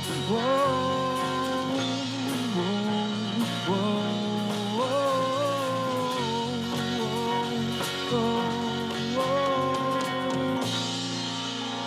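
Worship band playing a song: a voice sings long, held melody notes over acoustic guitar, piano and a steady rhythm. The singing stops near the end and the instruments play on.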